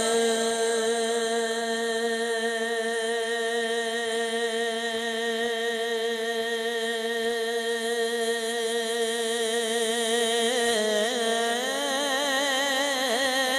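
Male voice singing a naat, holding one long, steady note with a slight waver, then breaking into a winding melodic run about eleven seconds in.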